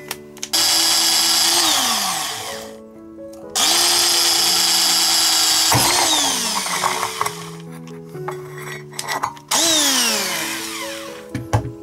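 Ryobi cordless drill boring through a thin stainless steel plate with a woodworking bit pressed down hard, in three loud runs. Each run starts suddenly and ends with a falling whine as the motor spins down. Background music plays underneath.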